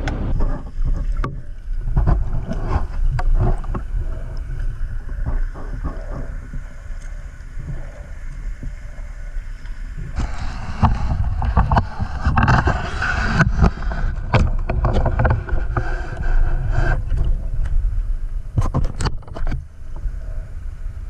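Water sounds picked up by a camera underwater on a night spearfishing dive: a steady low rumble with scattered clicks and knocks. A louder stretch of hiss comes in about ten seconds in and lasts several seconds.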